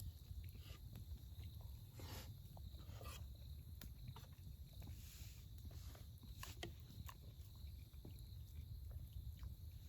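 Wood campfire crackling faintly, with irregular small pops and clicks over a low steady rumble.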